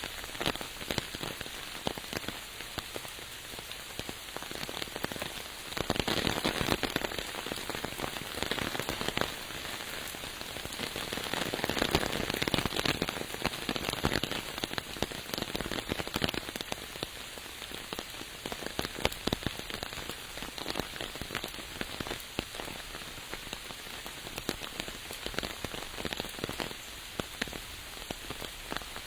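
Steady rain, a dense patter of drops striking surfaces, swelling louder twice, around six seconds in and again from about eleven to sixteen seconds.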